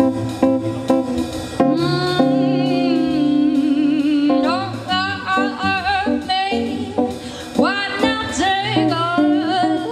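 A woman singing with vibrato over a plucked guitar accompaniment. The guitar plays alone in a steady rhythm for the first second and a half or so. Then the voice comes in with a long held note, followed by sliding runs up and down in pitch.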